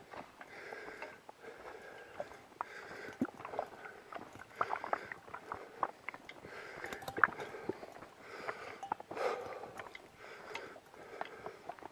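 Footsteps along a forest portage trail, with many small sharp snaps of twigs and brush underfoot, and the walker's breathing coming in soft rushes every second or two.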